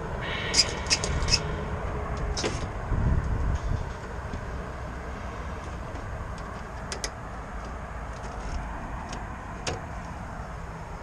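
A few sharp clicks and light knocks of tools and parts being handled inside a de-energized rooftop heat pump. Most come in the first couple of seconds, with a short low rumble around three seconds in and single clicks later. A steady low rumble of background noise runs underneath.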